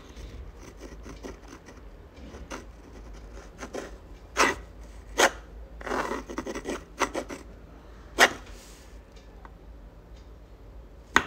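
Uni-ball fine rollerball pen scratching across textured sketch paper while a cursive signature is written. A faint, steady rubbing is broken by a few short, louder scratches from quick strokes.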